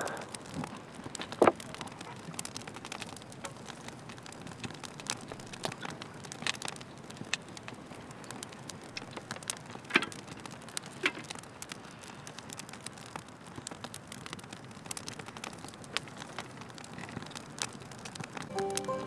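Quiet room tone with scattered small clicks and taps, the sharpest about a second and a half in and again about ten seconds in. Music with steady held notes comes in near the end.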